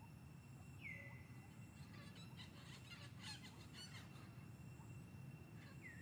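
Near silence: faint outdoor forest ambience with a steady high whine, a brief falling whistle about a second in and again near the end, and a faint flurry of quick chirps in the middle.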